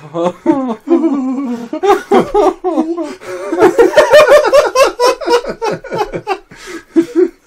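Two men laughing hard in fits of belly laughter. The laughter grows to its loudest about four seconds in, then tails off in shorter giggles.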